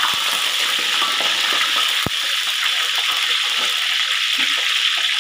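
Eggplant pieces frying in hot oil in a wok: a steady, loud sizzle, with one knock of the metal ladle against the wok about two seconds in.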